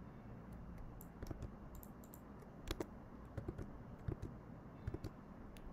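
Computer keyboard keystrokes: faint, irregular clicks, some in quick pairs and clusters, as a block of code is copied and pasted.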